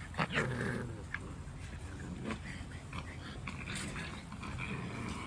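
Six-week-old Rottweiler puppies play-fighting and mouthing each other: scuffling and small snaps, with a brief puppy vocal sound about half a second in.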